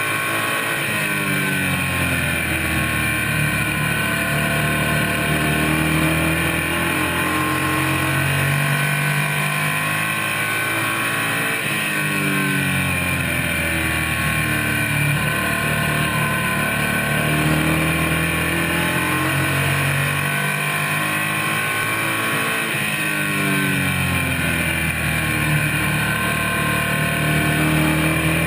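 Race car engine heard from inside the cockpit at racing speed. It revs up along the straights and drops off into the turns, so the pitch climbs and falls again every several seconds, lap after lap.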